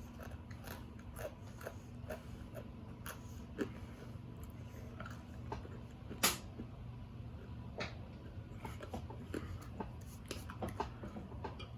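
A person chewing and crunching snacks close to the microphone: small, irregular crunches and mouth clicks, one louder crunch about halfway through, over a low steady hum.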